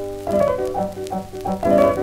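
Background piano music, a run of quick struck notes.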